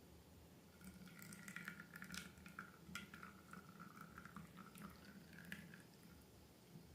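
Faint wet, sticky crackling and squishing of slime being worked by hand, a run of small clicks from about a second in that fades out near the end.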